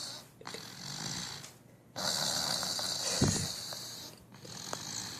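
A sleeping person snoring: long raspy breaths come and go in a slow rhythm, a louder one starting about two seconds in and quieter ones around it. A brief low bump about three seconds in is the loudest moment.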